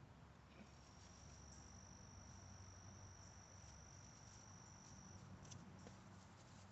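Faint, steady high-pitched insect trill that stops about five seconds in, with a few faint rustles of piglets moving over straw bedding near the end.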